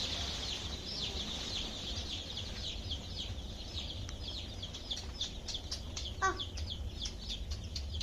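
A brood of desi chicks peeping continuously: many short, high, downward-sliding peeps overlapping in a dense chorus, with one lower call about six seconds in, over a steady low hum.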